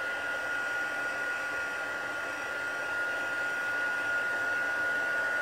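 Craft heat tool (embossing heat gun) running steadily: an even blowing rush with a constant high whine through it.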